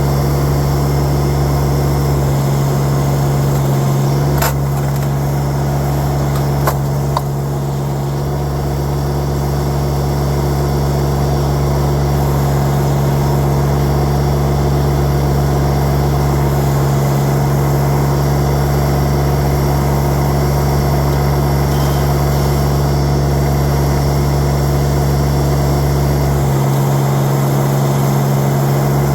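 LS MT1-series compact tractor's diesel engine running at a steady speed, with a couple of sharp clacks about four and seven seconds in.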